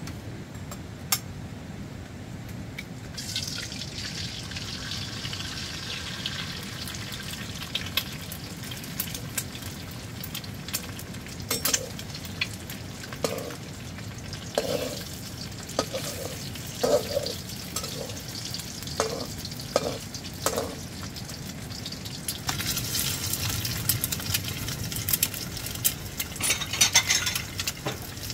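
Food sizzling in a pan, with clicks and scrapes of a utensil stirring it. The hiss starts about three seconds in and grows louder near the end.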